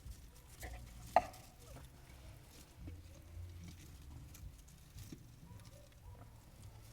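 Faint pattering and scratching of baby bearded dragons and crickets scurrying and hopping in their enclosure, over a low steady hum. One sharp click about a second in.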